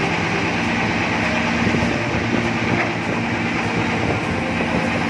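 Tugboat's diesel engine running steadily, a continuous low drone with a hum of even tones underneath.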